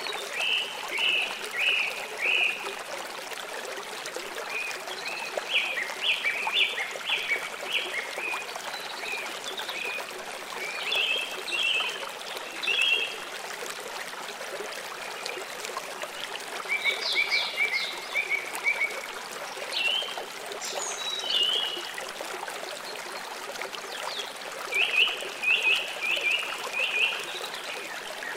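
Russian tortoise biting and crunching lettuce leaves, in runs of four to six quick bites with pauses of a few seconds between, over a steady background hiss.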